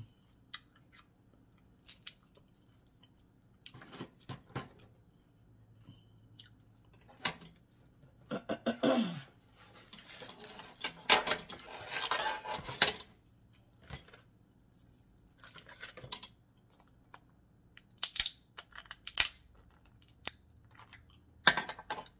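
Close-up eating sounds: chewing, with scattered sharp clicks and a longer crunchy, tearing stretch about ten to thirteen seconds in.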